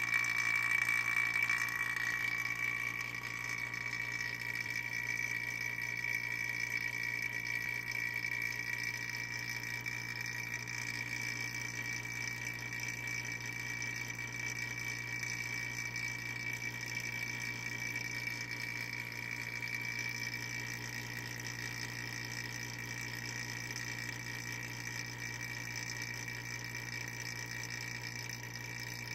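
Small electric vacuum pump running steadily, with a high whine over a low hum, drawing vacuum on a vacuum wiper motor.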